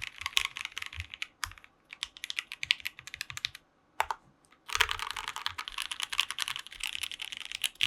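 Fast typing on a KBD67 Lite R2 mechanical keyboard with a polycarbonate plate, Gateron Yellow linear switches and PBT Cherry-profile keycaps: dense runs of keystroke clacks, with a short pause a little past the middle.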